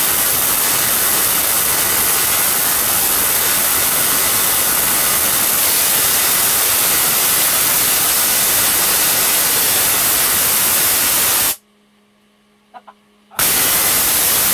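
Large Tesla coil firing, its long spark streamers giving a loud, continuous harsh hiss. The discharge cuts off suddenly a few seconds before the end, leaving only a faint hum and a couple of small clicks, then starts again for the last second.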